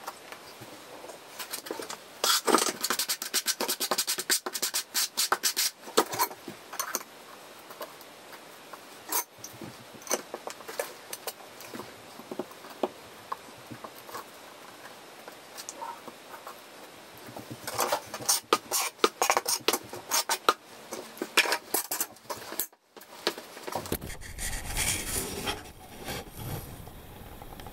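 Hands setting porcelain floor tiles and pushing plastic tile spacers into the joints: clusters of light clicks, taps and scrapes, busiest for a few seconds near the start and again past the middle. After a brief gap near the end, a duller rustling noise.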